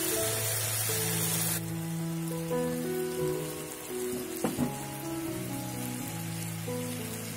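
Pak choy and carrots sizzling as they stir-fry in a pan, under background music with long held notes. The sizzle drops off sharply about one and a half seconds in and carries on fainter. Two quick knocks come about halfway through.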